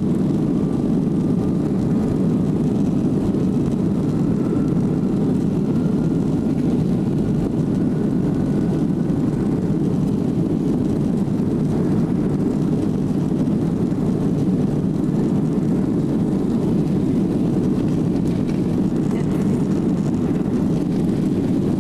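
Boeing 737's CFM56 turbofan engines heard from inside the rear cabin during takeoff and climb: a steady, loud low roar, with a faint thin whine rising slightly over the first several seconds.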